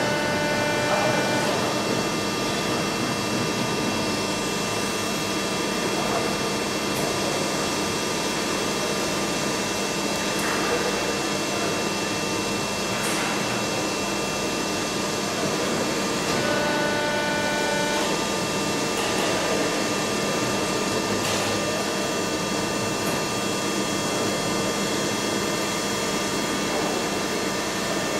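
Soraluce FP 8000 CNC travelling-column milling and boring machine running: a steady mechanical hum and whine made of several held tones. A set of higher tones changes pitch briefly near the start and again about 17 seconds in, as the drives change speed.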